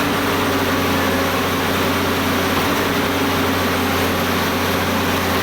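Sany concrete pump's engine running steadily with an even, unbroken drone.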